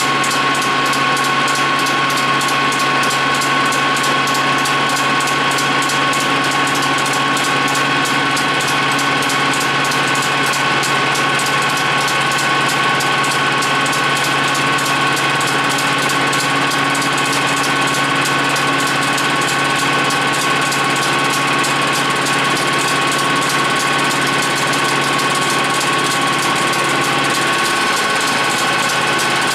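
Capstan lathe running in gear at about 1000 RPM, a steady whine over a machine hum.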